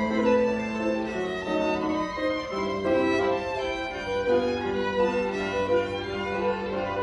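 Two violins and a grand piano playing a chamber piece together, the violins bowing held notes over the piano.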